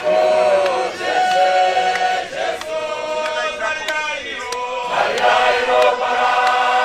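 A group of men singing a hymn together without instruments, in long held notes that move from one pitch to the next.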